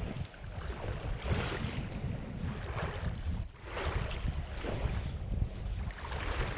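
Wind buffeting the microphone with a steady low rumble, over sea waves washing in repeated hissy surges every second or so.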